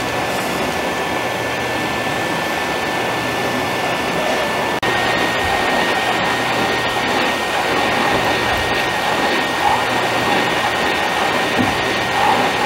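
Hot-air rework station blowing steadily with a thin whine, heating the eMMC flash chip on a TV main board to desolder it. The whine steps slightly higher after a brief dip about five seconds in.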